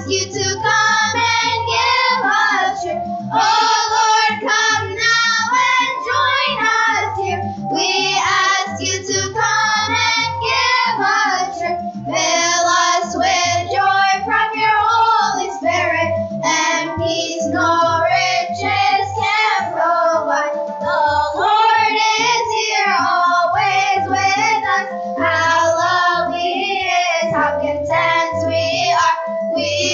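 A children's choir of 8- to 10-year-olds singing together through microphones, one melody line carried by many young voices.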